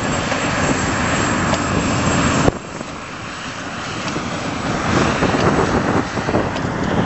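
E.M. Baldwin diesel cane locomotive running steadily under load as it hauls loaded sugar cane wagons. The sound drops suddenly about two and a half seconds in, then builds back up.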